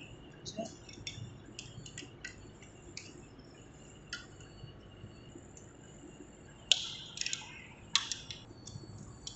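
Small metal clicks and clinks as a spanner and steel nuts knock against a vacuum contactor's steel frame: light scattered ticks at first, then a handful of sharper clinks in the last few seconds.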